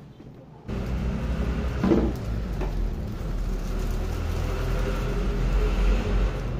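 Steady low rumble of a motor vehicle engine running nearby, with a single knock about two seconds in.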